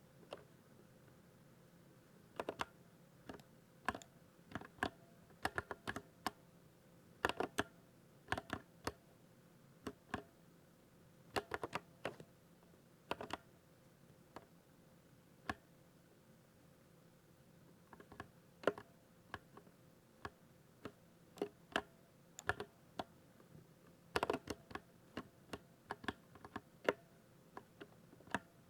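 Typing on a 60% mechanical keyboard: irregular sharp key clicks, often in quick clusters, thinning to a few scattered taps about halfway through.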